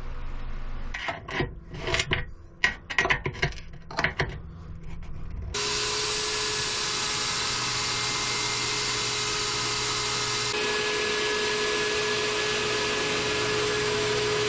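Irregular rubbing and scraping strokes on wood. About five seconds in, an orbital sander starts and runs steadily with a constant motor hum, sanding the epoxy-and-wood board at a fine grit.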